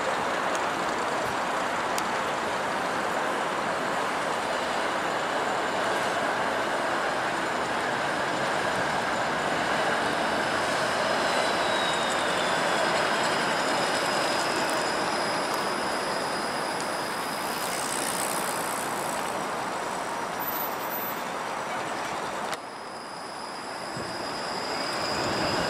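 TTC Flexity Outlook streetcar passing on its rails with a steady rolling noise, and a high whine that falls in pitch as it goes by midway. After a sudden cut near the end, a streetcar's high whine rises in pitch.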